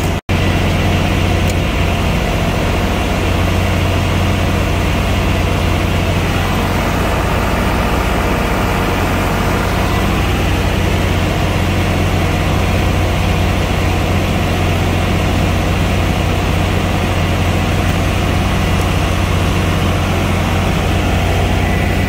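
30 kW generator running steadily under load during a load bank test, a constant low engine hum, together with the even rush of the load bank's cooling fans.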